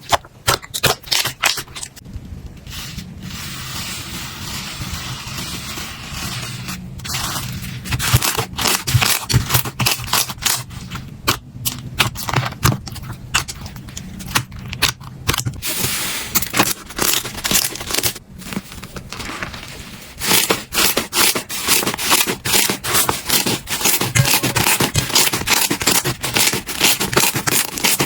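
Slime being pressed, poked and stretched by hand: a run of sharp sticky pops and crackles, with stretches of softer steady rustling between them. The pops come thick and fast from about two-thirds of the way in.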